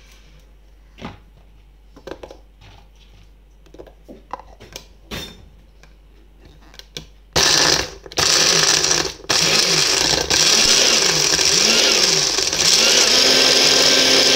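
A few clicks and knocks as the mixer grinder's steel jar is handled and its lid fitted. Then, about seven seconds in, the grinder motor starts loud, is pulsed off briefly twice and runs on with a wavering pitch, grinding Oreo biscuits to crumbs.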